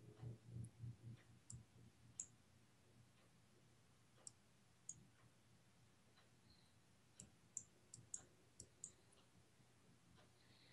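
Near silence with a few faint, sharp computer mouse clicks scattered through it, plus faint low bumps in the first second and a half.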